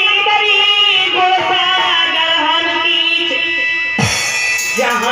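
Live Hindi devotional bhajan music: a man singing a slow sumirani into a microphone over sustained accompaniment, with a single drum-and-cymbal crash about four seconds in.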